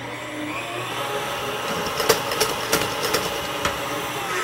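Electric stand mixer motor running steadily with a wire whip in heavy cream, whipping it toward stiff peaks. A few sharp clicks come between about two and three and a half seconds in.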